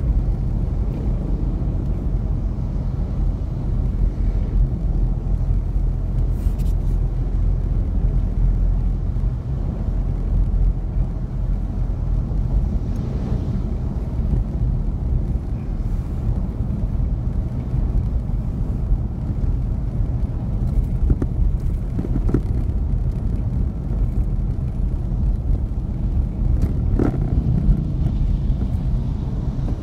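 Steady low rumble of a car's engine and tyres on the road, heard from inside the moving vehicle. Two brief higher-pitched sounds cut through it in the second half.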